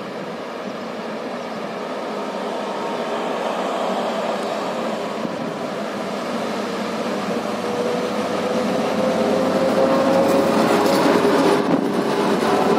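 A train running past, its rumbling rail noise growing steadily louder, with a faint whine that rises slowly in pitch in the second half.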